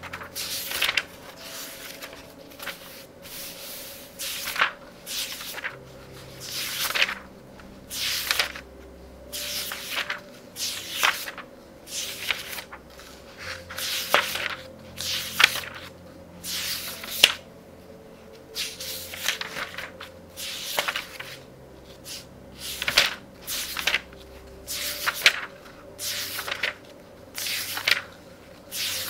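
Pages of a very thick book being turned rapidly one after another, a papery swish about once a second.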